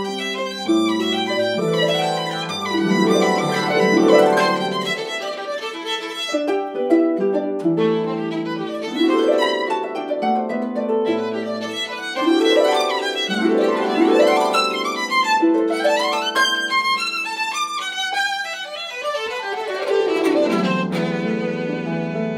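Violin and concert harp playing a classical duet: the violin's bowed lines over the harp's plucked notes, with several sweeping runs up and down the strings.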